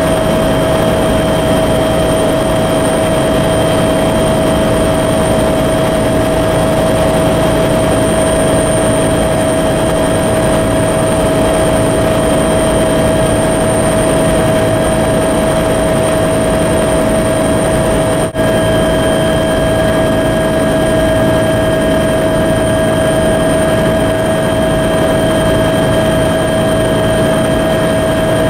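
Helicopter engine and rotor noise heard from inside the cabin: a loud, unchanging drone with a constant high whine from the turbine, cut for a split second about 18 seconds in.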